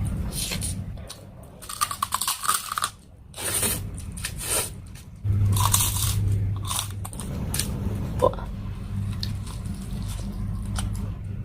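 Crunchy food being bitten and chewed close to the microphone, a run of irregular crackles over a steady low hum.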